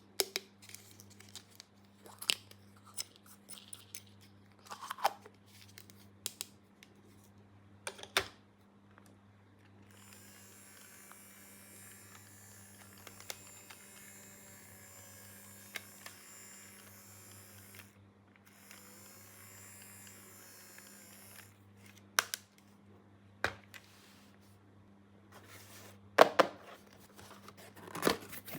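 Small plastic toy parts and packaging being handled: scattered sharp clicks, taps and light rustles. From about ten seconds in there is a steady hiss with a short break, then more clicks and snaps near the end.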